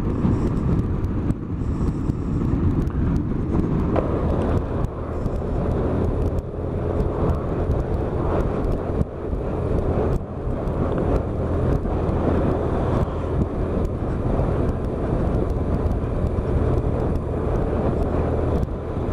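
Heavy wind noise rushing over the microphone while riding a BMW R1100RS motorcycle, with the bike's flat-twin boxer engine running steadily underneath.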